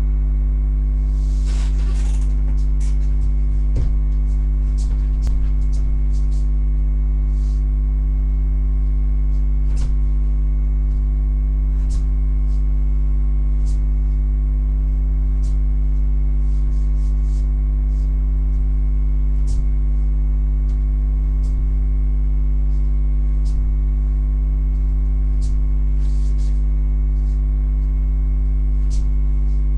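Loud, steady electrical mains hum picked up by a webcam microphone: a low buzz with several overtones that never changes. Faint scattered clicks and taps sound now and then above it.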